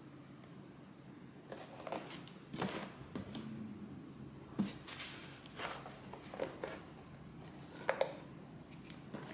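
Keyboard box and packaging handled during unboxing: irregular rustles, scrapes and light knocks starting about a second and a half in.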